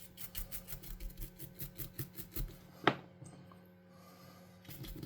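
Toothbrush bristles scrubbing the recessed letters on plastic game-controller buttons: quick back-and-forth scratchy strokes, about five a second, with a sharp click about three seconds in, a short pause, then scrubbing again near the end.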